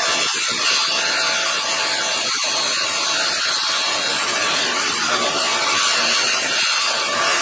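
A 1x30 belt sander running with a steel tap handle held against its belt: a steady abrasive hiss as the handle is sanded.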